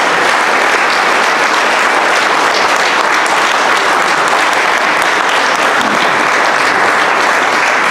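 Audience applauding in a hall: sustained, steady clapping from a room full of people.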